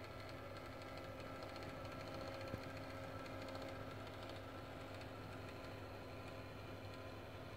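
A small electric motor running steadily with a low hum and a fine rapid ticking, with one sharp click about two and a half seconds in.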